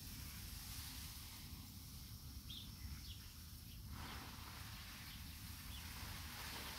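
Garden hose spray nozzle hissing faintly as water is sprayed onto plants, the spray sound dropping away briefly and coming back suddenly about four seconds in. A few faint bird chirps come through.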